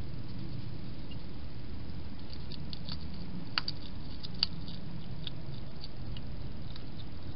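Hedgehog eating: small, sharp clicks of chewing scattered through the middle of the clip, two of them louder, about three and a half and four and a half seconds in, over a steady low hum.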